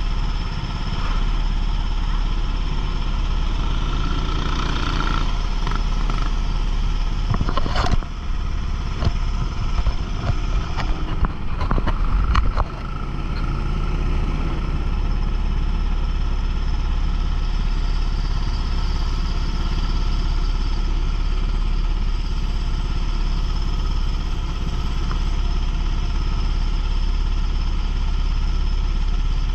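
Racing kart engine running at speed, heard from onboard with road and wind noise. From about 8 to 12 seconds in, a run of sharp knocks and rattles sits over it.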